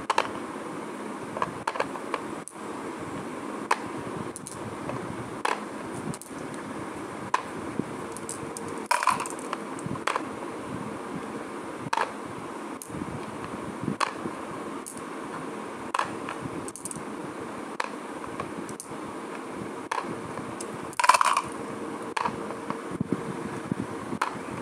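Glass marbles clicking against each other and the plastic board of a Brainvita (peg solitaire) game as they are jumped and lifted off, sharp single clicks every second or two, a louder clatter twice. A steady hum runs beneath.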